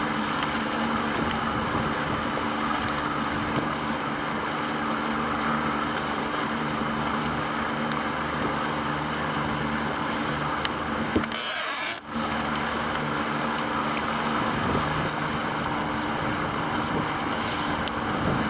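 Small boat's motor running steadily with a low hum, mixed with water and wind noise. About eleven seconds in, a brief loud rush of noise cuts off sharply, then the motor hum carries on.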